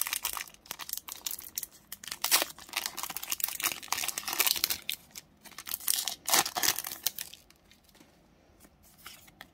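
A Pokémon Shining Fates booster pack's foil wrapper crinkling and tearing as it is opened by hand: a dense crackle that dies down about seven seconds in.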